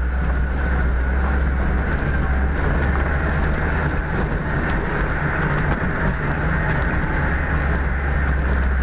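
Steady vehicle engine and road noise: a continuous low rumble with no change in pace.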